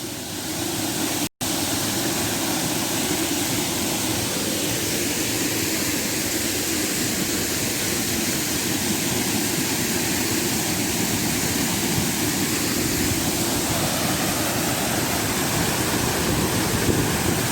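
Steady rushing of a waterfall, broken by a momentary dropout about a second and a half in.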